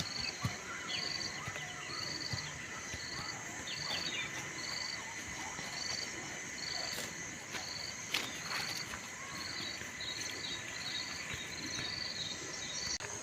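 A cricket chirping in an even rhythm, about three short high chirps every two seconds, over a faint steady high tone and a few scattered clicks.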